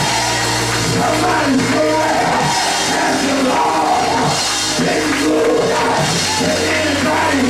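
Live gospel praise music: a drum kit with cymbals over sustained low bass notes, and voices singing over it.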